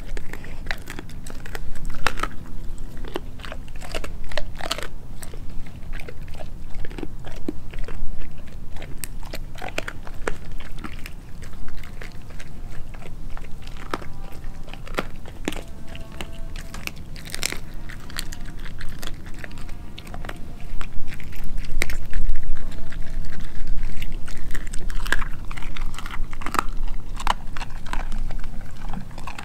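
Doberman eating raw turkey neck, chicken feet and pork skin: wet chewing with many irregular sharp crunches.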